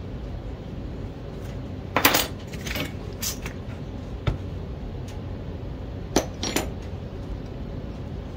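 Small clay-carving tools clinking and knocking against each other and the work table as they are picked up and put down: several light sharp clicks, loudest about two seconds in and again around six seconds, over a steady low rumble.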